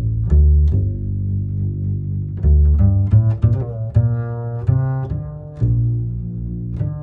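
Background music: a slow line of low notes, each with a sharp, plucked-sounding attack followed by a held tone.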